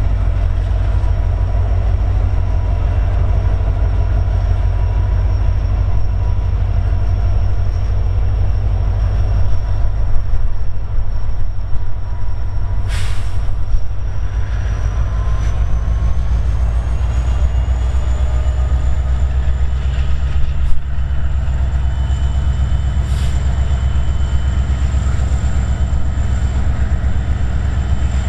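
Diesel-electric freight locomotives, among them the EMD SD70ACe UP 1995, passing with a deep steady engine rumble. Over it runs a thin high whine that rises a little in pitch partway through. Brief sharp high noises break in twice, about 13 and 23 seconds in.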